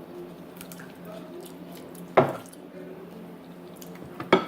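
Two sharp clacks of dishes or utensils knocked at the table, about two seconds apart, over faint quiet eating sounds.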